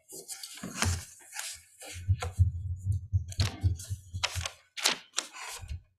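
Papers rustling and being shuffled close to a lectern microphone, with repeated dull bumps and knocks of handling noise.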